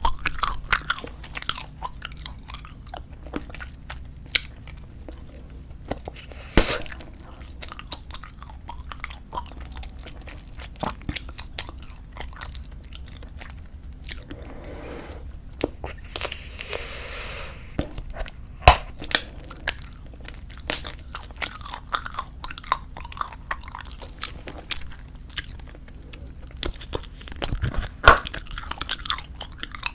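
Close-miked chewing of soft squeeze-tube bubblegum: wet smacks and sharp clicks throughout, with a few louder snaps. A few seconds of breathy hiss about halfway through.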